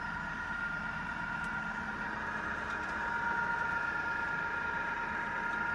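Falconi all-geared radial drilling machine running: a steady motor and gearbox hum under a high, even whine, getting slightly louder about three seconds in.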